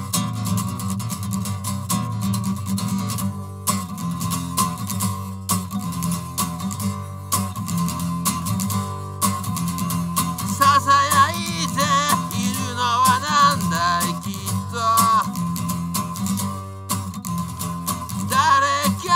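Acoustic guitar strummed in a steady rhythm. About ten seconds in a man's voice joins, singing over the guitar, and comes in again near the end.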